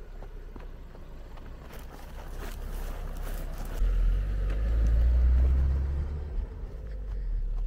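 A Lada Vesta station wagon driving past on a dirt track. The engine and tyre rumble builds to its loudest as the car passes close, about four to six seconds in, then eases as it drives away.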